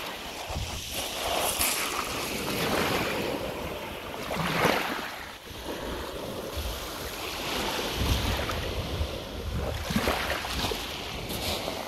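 Shallow seawater sloshing over a shingle shore, with splashing about ten seconds in as a released smoothhound shark beats its tail and swims off. Wind rumbles on the microphone.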